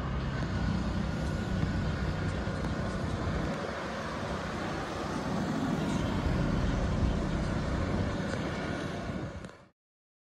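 City street ambience with car traffic: a steady rush of road noise that fades out to silence near the end.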